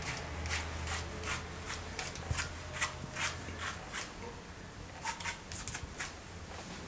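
Hand razor scraping through lathered stubble in quick repeated strokes, about three a second, with a short pause about four seconds in.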